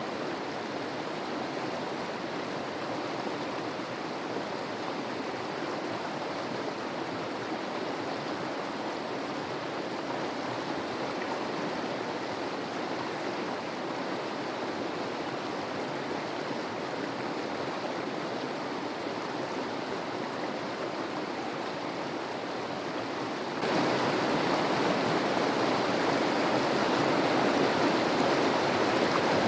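Mountain river water rushing over rocks, a steady, even noise. It jumps abruptly louder about three-quarters of the way through and holds at the higher level.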